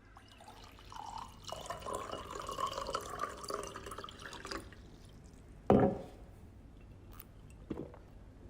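Packaging being handled: a few seconds of rustling and rubbing, then one sharp knock, and a fainter tap near the end.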